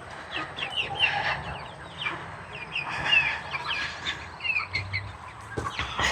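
A flock of chickens clucking and calling, many short overlapping calls.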